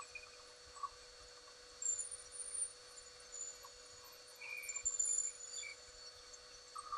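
Small lathe running with a steady hum and whine while sandpaper is held against the spinning pen blank, giving short faint squeaks now and then.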